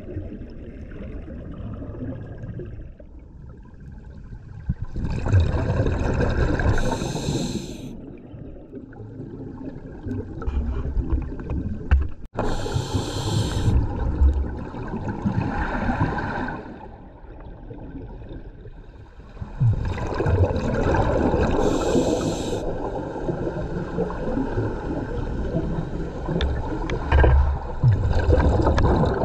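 A scuba diver breathing through the regulator underwater: a brief hiss of each inhalation, then the bubbling gurgle of exhaled air, repeating every several seconds.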